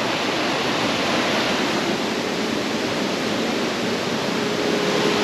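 Mountain stream rushing over boulders: a steady, even rush of water.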